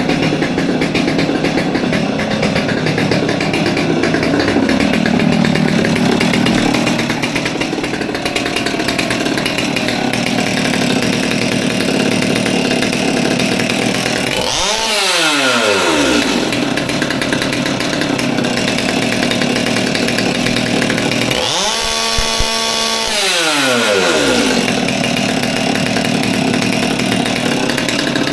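Stihl MS200T two-stroke top-handle chainsaw running, then revved up and let back down twice, the second time holding at high revs for about a second, with a third rev starting near the end. It is a test run after a new fuel line was fitted to cure a saw that would not rev out, as if hitting a rev limiter.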